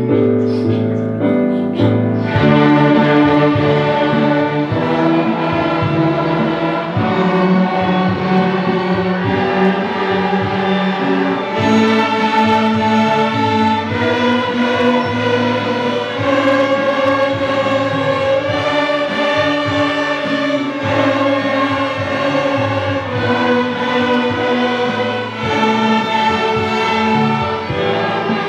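A children's ensemble performing a piece of music, many sustained notes sounding together; the sound grows fuller about two seconds in.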